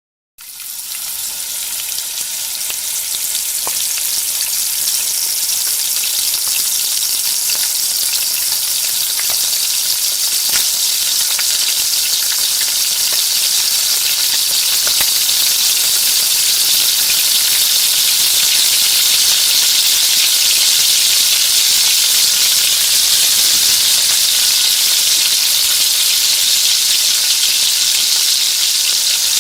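Food frying in hot oil: a steady high sizzle with scattered crackles, swelling up from silence over the first few seconds.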